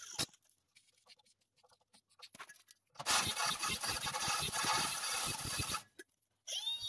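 Cordless drill with a hole saw cutting through the wall of a rusted steel post: a rough, chattering grinding for about three seconds after a near-quiet start with a few faint clicks.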